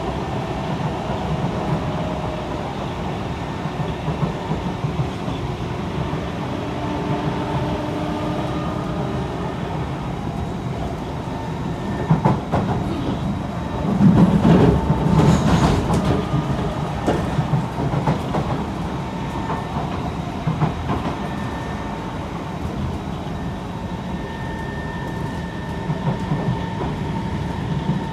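Kawasaki C151 metro train heard from inside the carriage while running between stations: a steady rumble of wheels on rail with faint drifting motor tones. About halfway through it grows louder for a few seconds with rattling and clicking, the clickety-clack of the wheels over the track.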